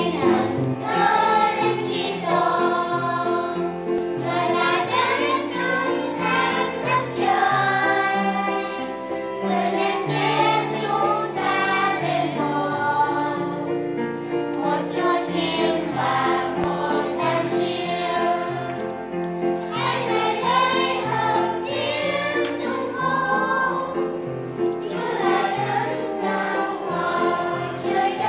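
Children's church choir singing together in unison, held steady over a low accompaniment that steps from note to note.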